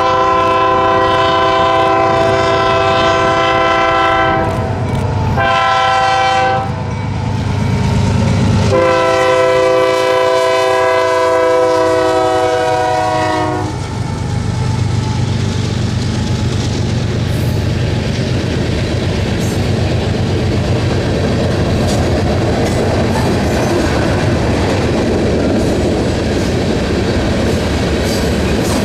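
Diesel freight locomotive's multi-chime air horn sounding a long, a short and a long blast, the closing pattern of a grade-crossing signal. The train then rolls past: a low locomotive engine drone, followed by freight cars clattering steadily over the rail joints.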